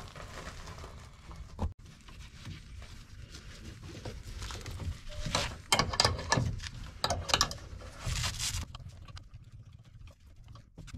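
Handling noise from a wooden treadle-hammer pedal and its hardware: irregular clicks, knocks and scraping as gloved hands work the eye bolt, cable and wing nuts. The sounds thin out near the end.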